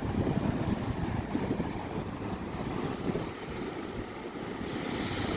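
Wind buffeting the microphone, a steady low rumbling rush, with a brighter hiss coming in near the end.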